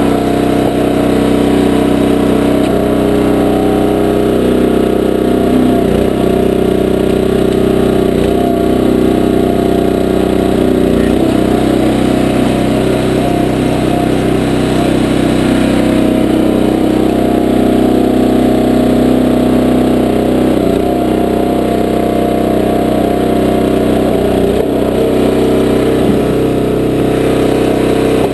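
Small gasoline engine of a 20-ton horizontal log splitter running steadily, its note dipping briefly several times as the hydraulic ram takes load splitting logs.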